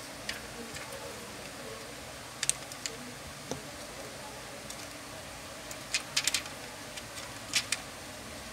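Sharp plastic clicks and taps from a smartphone being pressed together and handled on a silicone repair mat as its replacement screen is stuck on. There is one click about two and a half seconds in, a quick run of clicks around six seconds, and two more near the end, over a steady low hiss.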